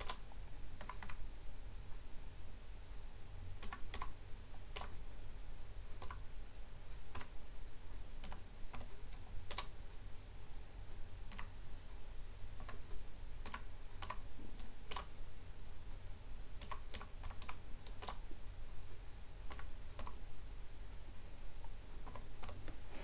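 Typing on a computer keyboard: irregular, unhurried keystrokes with short pauses between runs, over a steady low hum.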